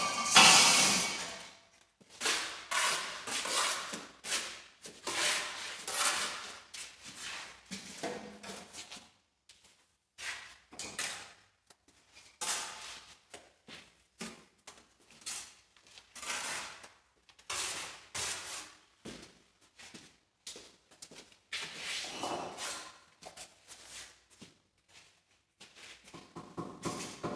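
Irregular scraping and knocking, in short bursts with brief pauses between them, from hand work with bricks and mortar.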